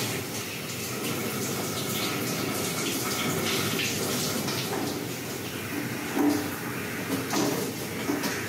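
Water spraying steadily from a SALONIA handheld shower head and splashing onto wet hair and scalp, a continuous even hiss.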